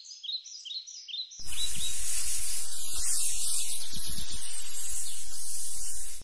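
A few short bird-like chirps, then about a second and a half in a loud steady hiss sets in, with a few low rumbles beneath it: a cannon's lit fuse burning at the touch-hole. The hiss cuts off suddenly near the end.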